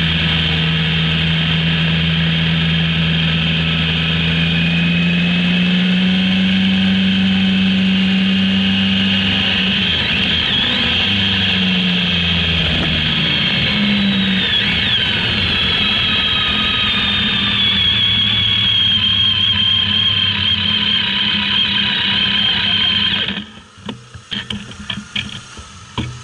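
Motorcycle engine running under way, its pitch rising and dipping with throttle changes and gear shifts. About 23 seconds in the engine sound drops away sharply as the bike comes to a stop, leaving a quieter stretch with a few clicks.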